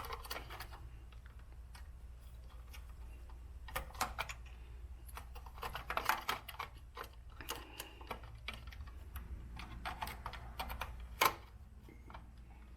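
Scattered small clicks and rustles of insulated wires and spade connectors being handled and pushed onto the terminals of a scroll saw's motor control board, with one sharper click a little after eleven seconds in.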